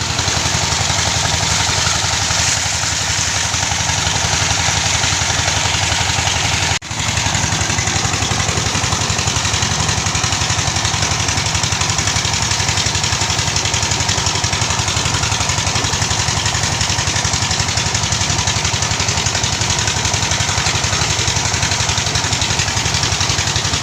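The '48' engine at a land tin-mining site running steadily under load, a loud, even, rapid engine beat with one momentary break about seven seconds in.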